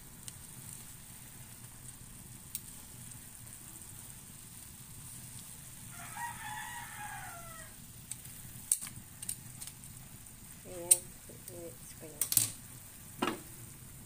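A rooster crows once, about six seconds in, over the steady low sound of the chicken simmering in its pot. In the second half come several sharp metal clinks of tongs and the pot lid against the enamel pot, louder than the crow.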